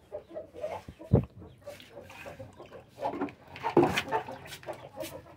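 Chickens clucking, with scattered knocks and a hard thump about a second in as a plastic bucket and clay water bowl are handled.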